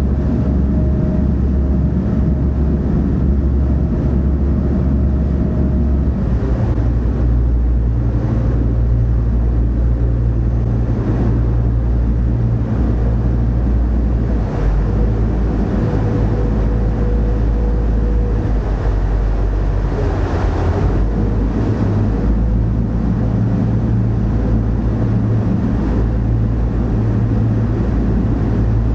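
A river tourist boat's engine running steadily under way, a loud low drone whose pitch shifts slightly about six seconds in, with the wake churning and rushing behind the boat.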